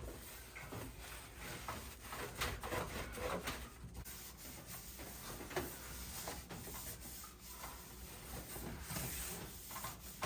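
Faint rustling and handling noise with scattered light clicks and knocks, irregular throughout.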